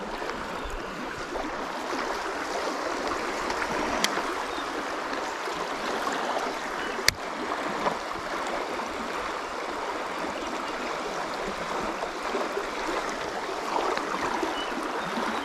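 Swift river current rushing steadily, with two sharp clicks about four and seven seconds in.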